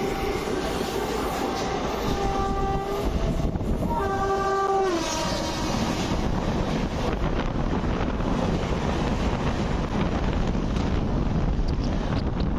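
Train horn sounding two blasts: a long one of about three seconds, then a shorter one a second later that sags in pitch as it ends. Underneath runs the steady rumble and rail clatter of a moving express train.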